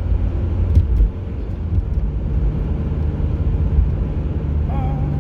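Steady low rumble of a car's engine and tyres heard from inside the cabin while driving, with a single knock about a second in and a short steady tone near the end.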